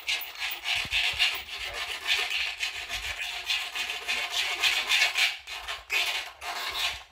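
A scratchy rasping rub, repeated in uneven strokes and fairly loud.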